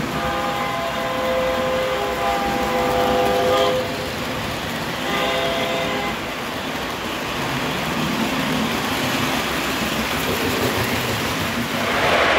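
Lionel-Flyer S gauge Blue Comet 4-6-2 steam locomotive's RailSounds electronic steam whistle blowing a long blast of about three and a half seconds, then a short one, over the steady rolling noise of the train on the track.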